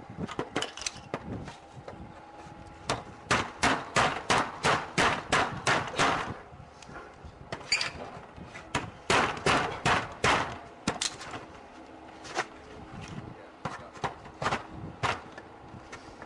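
An SWS garage door being struck again and again in a forced-entry attack: a fast run of hard, sharp blows at about three a second, a pause, a second run, then single blows spaced out.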